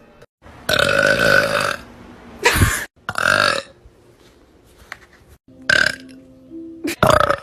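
A young woman burping loudly several times: one long burp about a second in, then a string of shorter burps.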